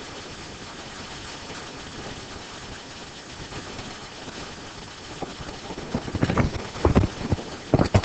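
Steady room-tone hiss, then from about five and a half seconds in a cluster of irregular knocks and bumps.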